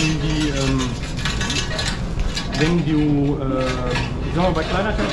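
Long iron rake scraping and clinking against the grate and fire door of a coal-fired steamship boiler furnace as slag is raked out, in a run of short irregular strokes. The slag formed because the furnace ran too hot.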